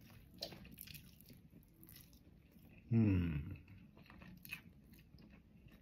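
Someone bites into a piece of crispy-skinned Jollibee fried chicken and chews it, with scattered crunches. About three seconds in comes a loud, falling "hmm" of enjoyment with the mouth full.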